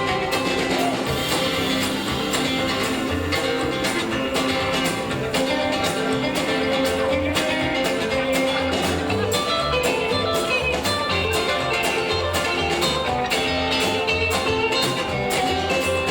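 Live rockabilly band playing an instrumental break between verses: electric guitar lead over a steady drum beat and bass line.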